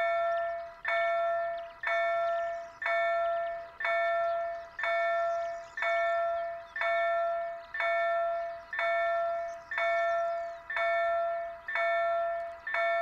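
Level crossing warning bell ringing steadily, about one strike a second, each stroke dying away before the next, while the crossing is closed for an approaching train.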